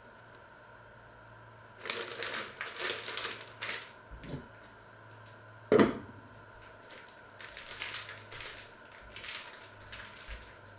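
Plastic bag of grated cheese crinkling in two spells of rustling as handfuls are pulled out and sprinkled, with one sharp knock about six seconds in.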